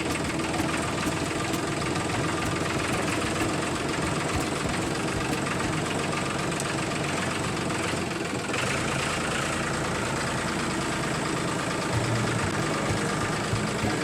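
A small engine running steadily with a fast, even beat; its tone shifts a little past halfway through.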